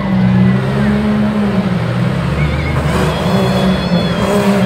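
Engines of trucks and SUVs racing on a dirt tough-truck course. The pitch rises and falls several times as the drivers accelerate and ease off.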